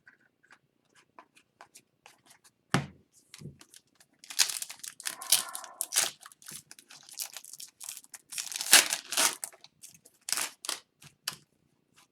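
A trading-card pack's wrapper being torn open and crinkled. There are two thumps about three seconds in and light clicks and taps of cards being handled.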